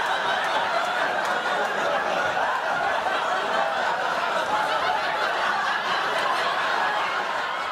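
Studio audience laughing steadily, a dense wash of many people's laughter.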